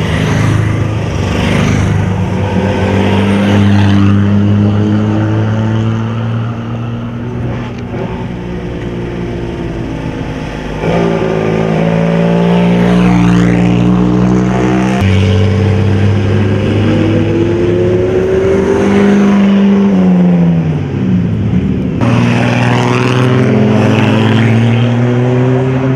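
Engines of vintage racing cars running as the cars drive past one after another, revs rising and falling, with a marked dip and rise in pitch near the end; the sound changes abruptly several times.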